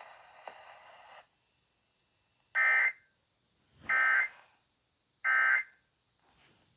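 Emergency Alert System end-of-message data bursts played over an FM radio: three short, shrill digital warbles about 1.3 s apart, signalling the end of the flash flood warning.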